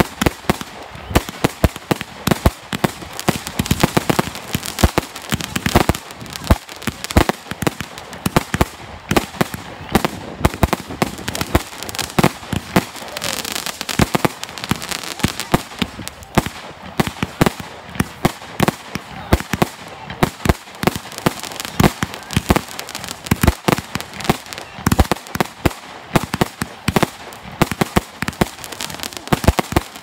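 A fireworks display: aerial fireworks bursting and crackling in a rapid, continuous barrage of sharp bangs and cracks, several a second without a break.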